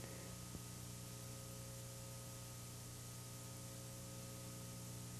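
A low, steady electrical hum over hiss, with no race call, and one faint click about half a second in.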